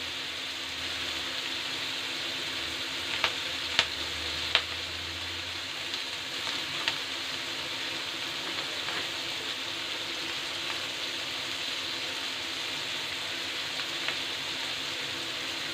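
Chopped onion, capsicum and garlic sizzling steadily in hot oil in a kadai over a high gas flame, with a few sharp clicks in the first seven seconds.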